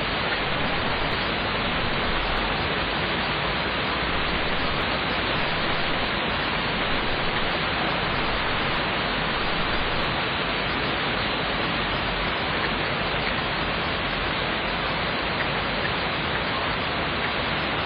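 Steady rain falling, an even hiss that holds at the same level throughout with no thunderclap.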